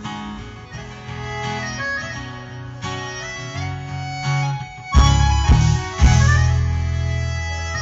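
Music played loud through a car sound system with a subwoofer: a song with harmonica and guitar, with hard, heavy bass hits coming in about five seconds in.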